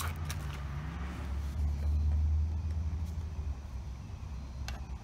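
Low rumble of a motor vehicle's engine, at its loudest about two seconds in, with a few light clicks near the start and near the end.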